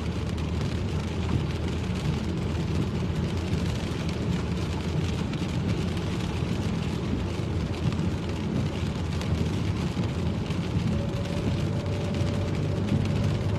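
Steady engine and tyre noise heard from inside a moving car on wet roads, with rain falling on the car.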